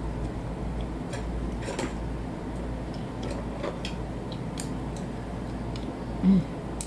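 Mouth sounds of someone chewing food, with scattered soft clicks at irregular intervals over a steady low background hum. A short low sound stands out about six seconds in.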